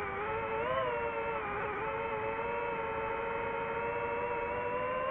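DJI FPV drone's motors and propellers whining, picked up by the drone's own onboard microphone. The pitch rises briefly about a second in, dips slightly, then holds steady as the drone cruises.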